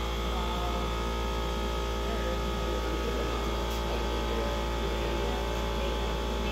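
Steady hum of a glassblowing studio's furnace and burner blowers, running evenly with several held tones over a low rumble. Faint voices chatter underneath.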